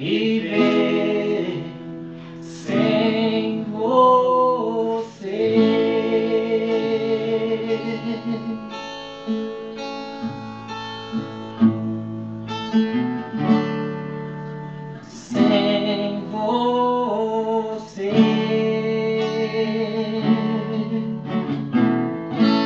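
Acoustic guitar strummed and picked in a song accompaniment, with a voice singing over it twice, briefly.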